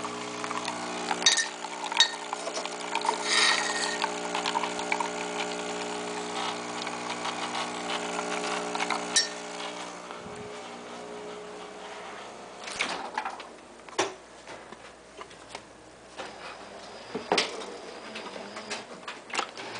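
Bean-to-cup coffee machine running with a steady motor hum for about nine seconds, then stopping. A few clicks and knocks follow.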